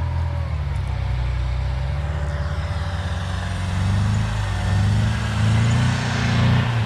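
Off-road 4x4's engine running under load, revving up about four seconds in, with a rising hiss alongside.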